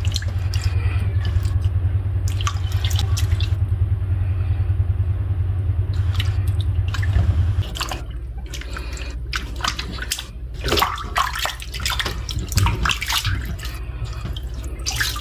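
Hands sloshing and rubbing a boiled octopus in a steel basin of cold water, with splashes and drips. A steady low hum runs under it and stops about eight seconds in, after which the splashing grows sharper and more frequent.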